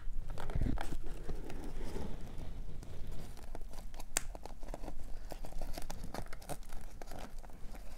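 Sphagnum moss being pulled apart by hand in a plastic tub: a steady run of soft crackling and tearing.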